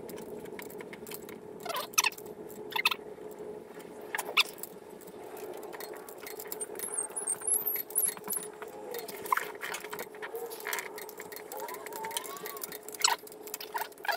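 Tekton torque wrench clicking sharply, a few single and paired clicks at a time, as the cylinder-head nuts are torqued down, over a steady hum.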